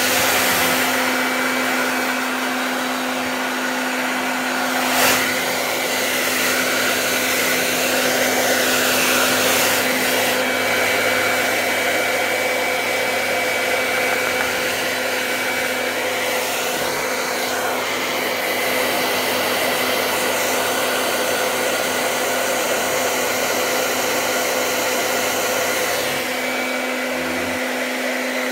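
Hand-held hair dryer blowing steadily: a rush of air over a steady motor hum. A brief knock sounds about five seconds in.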